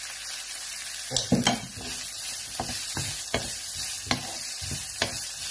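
Diced vegetables sizzling in a non-stick wok while a wooden spoon stirs them. From about a second in, the spoon scrapes across the pan about twice a second over the steady sizzle.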